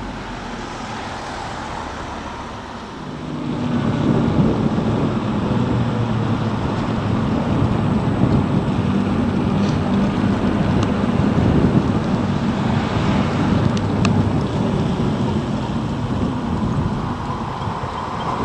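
Wind rush and road noise of a Zero DSR electric motorcycle being ridden, growing louder about three and a half seconds in.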